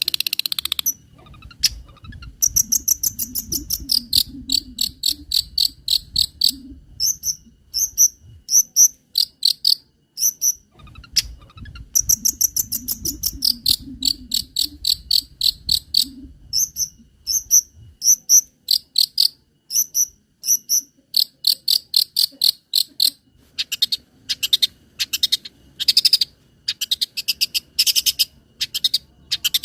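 High, cricket-like chirps repeated in quick runs of several a second, breaking into sparser single chirps near the end. They are part of a cendet (long-tailed shrike) masteran track of song and mimicked insect calls.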